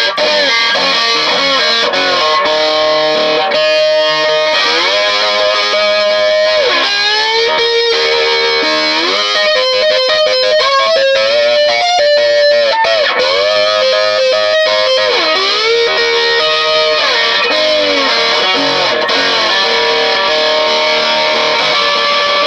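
Electric guitar, a Telecaster, played through an amp: held single notes and two-note chords, with notes bent up and back down every second or two. The player hears the notes drifting out of tune.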